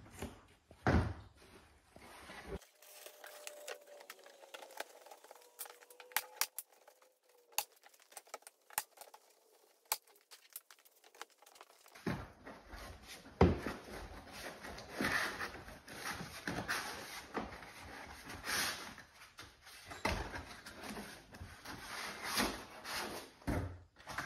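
Large cardboard sheets being handled and folded around a plywood shipping crate: rustling, flexing and scraping, with scattered knocks and thumps, the busiest in the last half.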